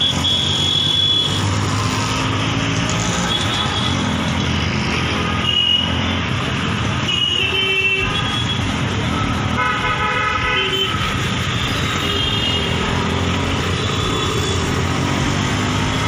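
Busy street traffic: steady engine and road noise with vehicle horns honking over and over, several short toots and a longer blast about ten seconds in.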